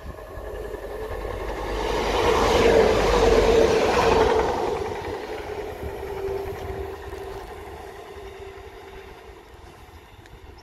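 Class 175 diesel multiple unit passing at speed: the rumble of its diesel engines and wheels on the rails builds to a peak about three seconds in, then fades as it moves away, its engine drone dropping in pitch as it goes by.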